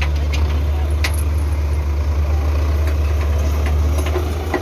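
Belarus tractor's diesel engine idling steadily, a deep even drone, with a few light clicks about a second in and near the end.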